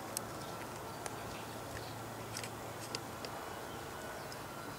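Light, scattered clicks and taps of hands handling a paintball marker's grip frame and internal wiring, a few irregular ticks over a steady background hiss and low hum.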